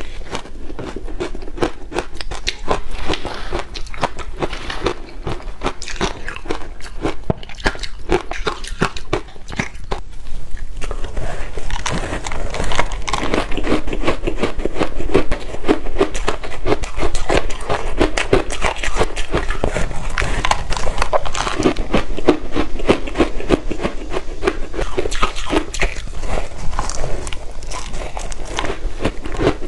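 Close-up crunching and chewing of ice coated in matcha green tea powder: a dense, rapid crackle of bites. About ten seconds in, the crunching grows louder and denser as she bites into a molded block of powder-coated ice.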